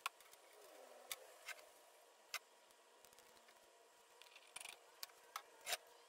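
Near silence: faint room tone with about eight short, sharp clicks and taps scattered through it, the loudest near the end.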